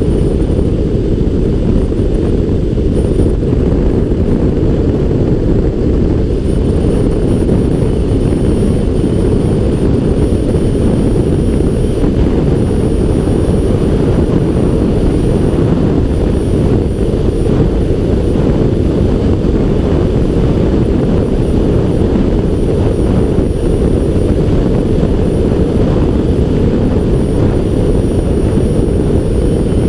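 Steady, deep wind rush buffeting a helmet-mounted camera's microphone as a motorcycle rides at expressway speed.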